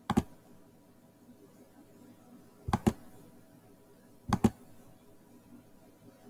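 Computer mouse clicking three times, each a quick press-and-release double click: one at the very start, one near three seconds in and one about four and a half seconds in, over a faint steady hum.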